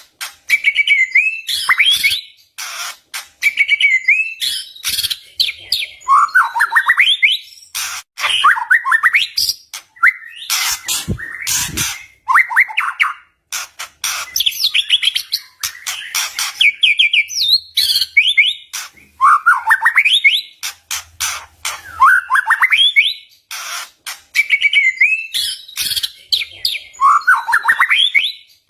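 White-rumped shama singing its agitated fighting song: loud, rapid phrases of rising whistled notes broken up by sharp cracking clicks, a new phrase every second or two.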